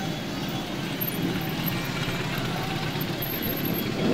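Many motorcycles of mixed types riding slowly past in a close convoy, their engines blending into a steady mix of engine sound.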